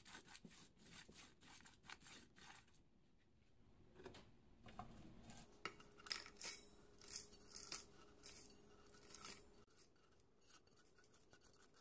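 Faint scraping and ticking of a wooden spatula stirring whole roasted spices in a nonstick pan, then from about four seconds in, several short bursts of whole spices (seeds, peppercorns, cloves, cinnamon stick) clinking and rattling as they are tipped from the pan into a stainless-steel spice grinder jar.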